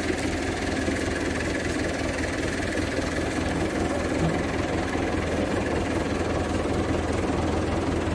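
Tractor engine running steadily under load, driving a wheat thresher through its PTO shaft and V-belt pulleys. The thresher's drum and belts run with it as one continuous machine rumble.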